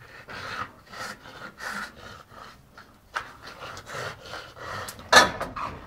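A bulldog breathing hard and rasping through its nose in short, rapid pulls, about two a second, while it hangs with its jaws clamped on a spring pole, with one louder burst about five seconds in.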